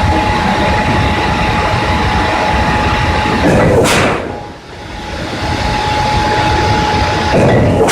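Smeral LZK 1000 1000-ton mechanical hot forging press running, its flywheel and drive giving a steady noise with a steady whine, and the press cycling about once every four seconds. Each cycle shows as a short, loud burst, heard twice, about halfway through and at the very end.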